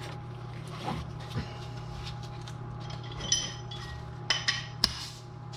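Metal-on-metal clinks and light knocks as an inner tie rod removal tool is slid onto and fitted around the car's inner tie rod. There are a few short ringing clinks about three seconds in and a cluster of sharper clicks near the end, over a steady low hum.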